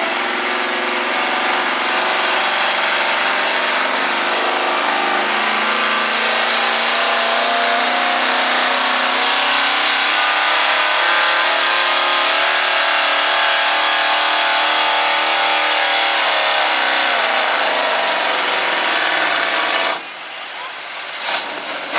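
Gas-engined Dodge Ram pickup running at full throttle while pulling a sled, a loud steady din. The engine note sinks gradually as the sled's load builds, and the throttle is lifted abruptly near the end.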